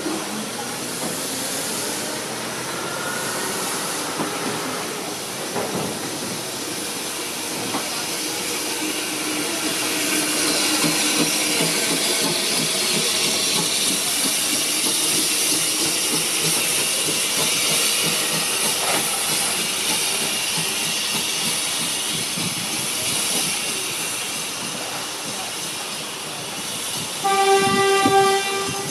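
Train of passenger coaches rolling past on the rails with a steady hiss that swells as it goes by, then a steam locomotive's whistle giving one short note, about a second long, near the end.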